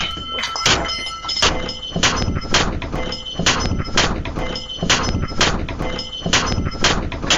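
Repeated loud bangs, roughly one or two a second, each followed by a lingering metallic ring.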